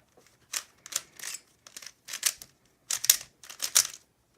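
Rubik's cube being turned by hand: a run of quick, uneven plastic clacks as its layers are twisted.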